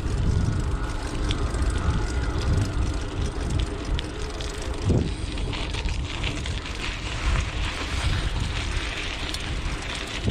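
Wind rumbling on the microphone while riding a dirt jump bike, with the hiss of the tyres rolling, which grows louder from a little past halfway.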